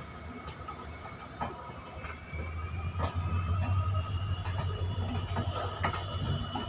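New RCF-built passenger coaches rolling slowly past: the wheels click irregularly over rail joints, over a steady high whine and a low rumble that grows louder about two seconds in.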